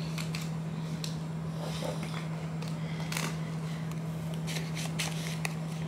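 Faint rustles and crackles of a stack of paper banknotes being handled, over a steady low hum.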